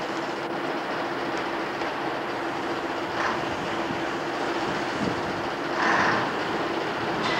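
A Scammell Commander tank-transporter tractor unit, with its Rolls-Royce CV12 diesel engine, idling steadily with a low hum. Short louder bursts sound about three seconds in and again about six seconds in.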